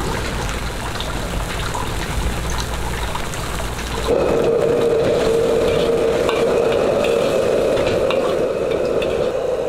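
Chicken and onions bubbling and sizzling in sauce in a wok over a gas flame. About four seconds in, the sound steps up to a louder, steady hiss with scattered light clicks.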